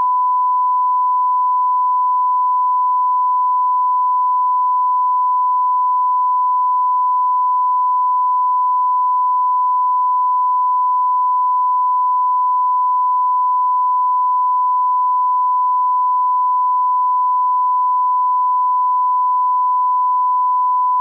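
Broadcast line-up reference tone played with colour bars at the head of a programme tape: a single steady pure tone at constant level that cuts off abruptly at the end.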